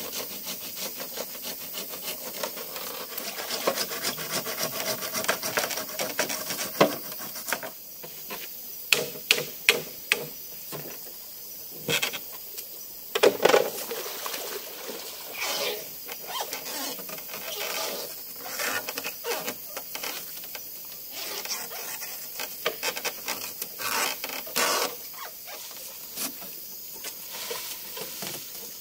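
Wood being scraped and knocked by hand: a fast run of scraping strokes over the first several seconds, then scattered, louder knocks and scrapes, over a steady hiss.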